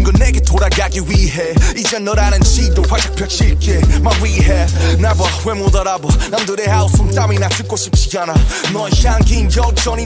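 Hip-hop music with rapped vocals over heavy, sustained bass notes.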